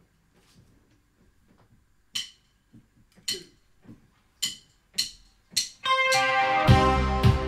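A few sharp, unevenly spaced ticks, then about six seconds in a synth-pop band starts a song: sustained synth and electric guitar chords over bass and a steady beat.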